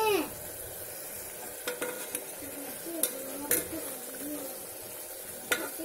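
Chicken masala sizzling steadily in an aluminium pressure cooker, with a few sharp clicks and scrapes of a spatula against the pot as it is stirred.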